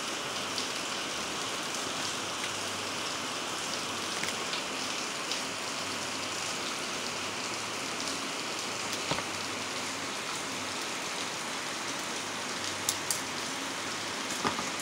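A steady rain-like hiss throughout, with a few faint, sharp metallic clicks as thin steel E-shaped laminations are worked loose and pulled from a small transformer core, a quick pair of clicks near the end.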